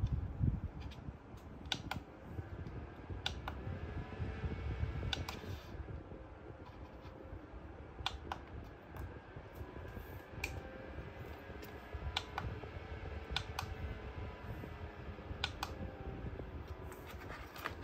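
Small foldable pedestal fan running with a steady hum, while its base buttons are pressed, giving about ten sharp plastic clicks spread through.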